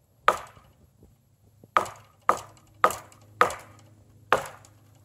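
Six sharp knocks of wood being struck, spaced about half a second to a second apart, as in chopping or batoning into a solid piece of wood.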